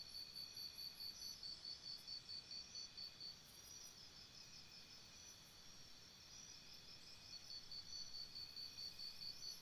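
Crickets chirping in a faint night chorus. One high, even chirp repeats about four times a second, fades for a few seconds in the middle and then returns, over the steady trilling of other insects.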